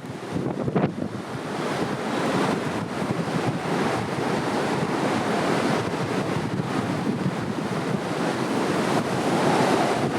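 Heavy storm surf breaking on a beach in typhoon winds, with the wind buffeting the microphone. A continuous rush of noise that swells louder about two seconds in and again near the end.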